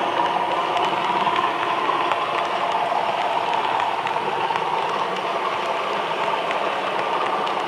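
Model train running along the layout's track: a steady whirring rumble of wheels and motor with faint scattered clicks from the rails.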